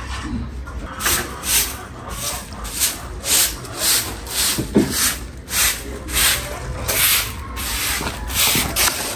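Stiff grass broom sweeping dry leaves and grit across a concrete floor, brisk swishing strokes about twice a second, starting about a second in.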